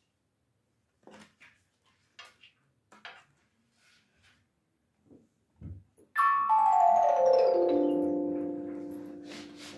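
Light clicks and taps of a punched paper strip being fed into a 30-note paper-strip music box, then, about six seconds in, a quick run of notes on its metal comb sweeping from high to low. The notes ring on together and slowly fade.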